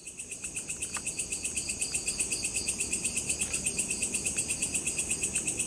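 Night insects, crickets, chirping in a fast, even, high-pitched pulsing trill.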